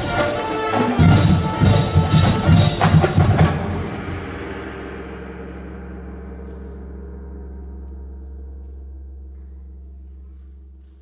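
Marching band with front-ensemble percussion playing a run of loud accented hits for about the first three and a half seconds, then a held low chord that rings on and slowly fades away.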